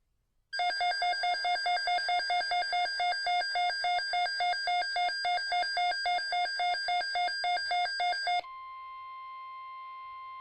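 Electronic alert alarm from a weather radio receiver beeping rapidly, about four beeps a second, alternating between two pitches. About eight seconds in it gives way to the single steady 1050 Hz NOAA Weather Radio warning alarm tone, which announces the broadcast alert.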